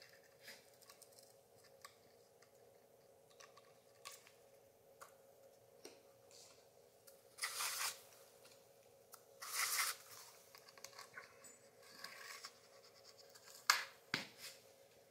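Scratching and small taps of a thin rod worked inside a glass sand-art frame, with two scratchy stretches about a second long near the middle and a couple of sharp ticks near the end, over a faint steady hum.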